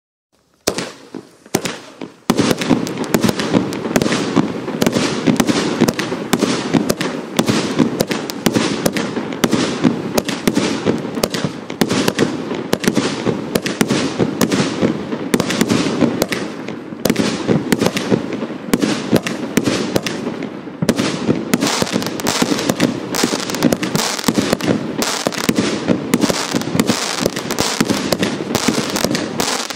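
Hallmark Fireworks 'Organised Chaos' 174-shot compound firework cake firing: a few shots about a second in, then a dense, unbroken barrage of rapid shots from about two seconds on.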